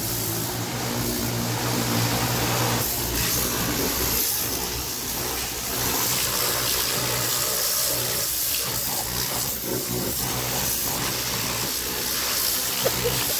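Electric high-pressure plunger-pump car washer running, its motor giving a steady hum under the hiss of the water jet spraying. There are a couple of sharp clicks near the end.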